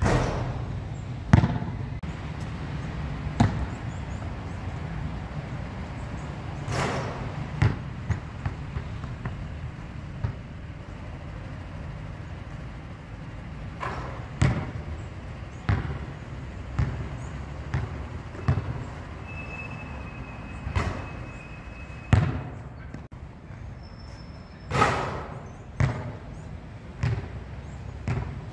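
Basketball bouncing on an outdoor court and striking the rim and backboard during shooting: single sharp thuds and bangs at uneven intervals, over a steady low rumble.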